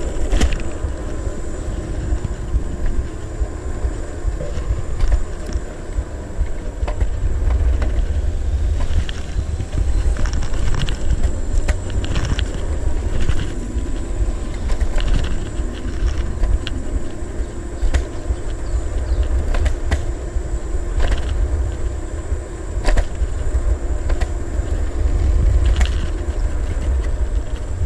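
Segway Ninebot ES1 electric kick scooter rolling along asphalt: heavy wind rumble on the microphone over steady tyre noise, with scattered clicks and rattles as it goes over bumps.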